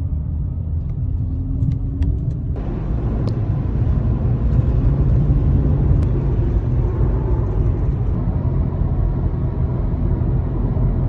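Road and tyre rumble of a moving Mercedes-Benz car, heard from inside the cabin. About two and a half seconds in it suddenly gets brighter and a little louder, with more wind and road hiss.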